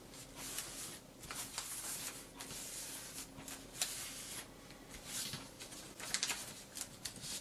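A sheet of paper being handled and folded: irregular rustling and crinkling as the creases are worked and pressed flat, with a few sharper crackles near the end.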